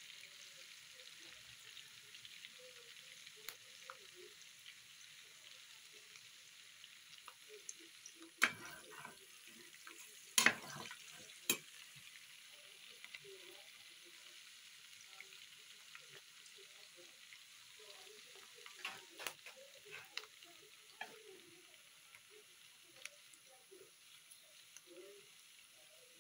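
Sliced onions frying in vegetable oil in a stainless steel frying pan, a steady sizzle, with a handful of sharp clicks scattered through it.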